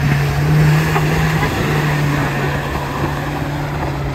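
Mahindra Scorpio SUV's engine pulling under load through deep mud, a steady drone that dips briefly about a second and a half in, with mud and water splashing under the tyres.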